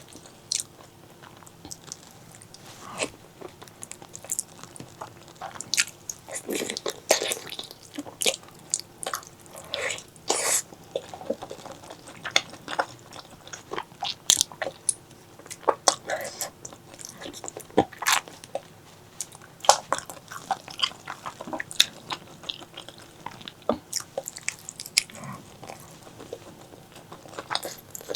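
Close-miked chewing and biting of spicy pork leg curry: many short, sharp mouth clicks and smacks at an irregular pace.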